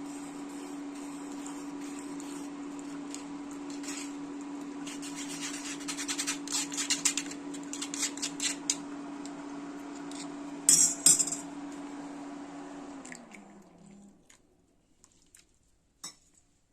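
Metal kitchen utensils and vessels clinking while the boiled spiced milk tea is strained and served, with two louder clinks about eleven seconds in. Under it a steady motor hum drops in pitch and stops about two-thirds of the way through.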